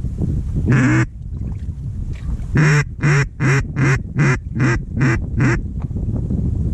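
Mallard duck call blown in a hen's quacking cadence: one long quack about a second in, then a run of eight short quacks at about three a second.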